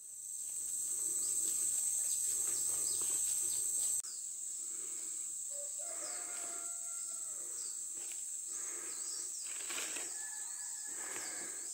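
Rainforest ambience: a steady high-pitched insect drone with many short bird chirps and a few held whistled notes over it. It fades in at the start and drops slightly at a cut about four seconds in.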